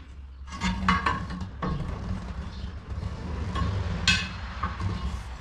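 Tire irons clanking against a steel wheel rim while the tire bead is pried off: several sharp metallic strikes that ring briefly, the loudest about four seconds in, over a steady low hum.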